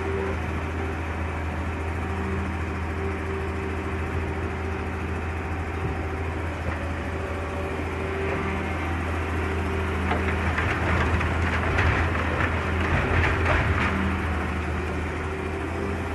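Hitachi Zaxis excavator's diesel engine running with a steady hum. About ten seconds in it grows louder and rougher with a clattering noise for a few seconds, then settles back.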